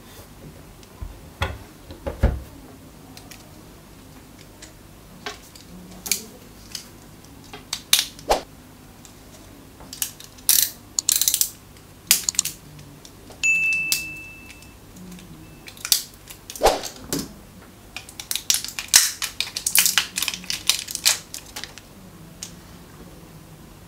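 Handling sounds on a desk: a few knocks and taps as a plastic bathroom scale is turned over and set down, then plastic shrink wrap around a pack of AAA batteries crinkling as it is cut with a utility knife and peeled off, in several bursts. A short high squeak sounds just past halfway.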